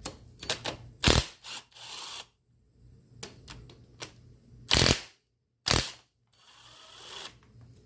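Hand tools working on a dirt bike engine's metal parts as the oil-cooler lines are unbolted: scattered clicks and several sharp metal knocks, the loudest about a second in and around five and six seconds in, with a short scrape near the end.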